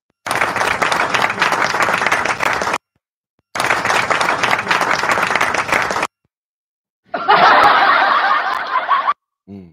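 Canned applause and laughter sound effects played over the stream: three clips of about two and a half seconds each, each starting and cutting off abruptly.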